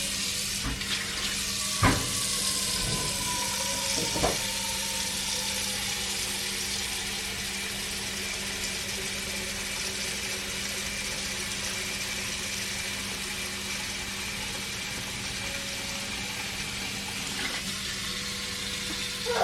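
Kitchen tap running steadily into a cooking pot, filling it with water, with a faint tone that slowly falls in pitch. A couple of knocks sound in the first few seconds.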